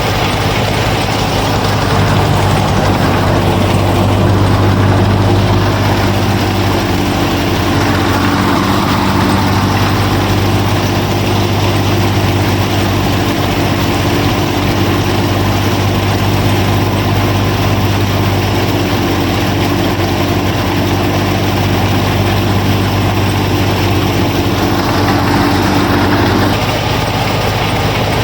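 Motor of a DIY miniature tractor and thresher running steadily with a constant hum. A second, higher hum joins about two and a half seconds in and drops out near the end.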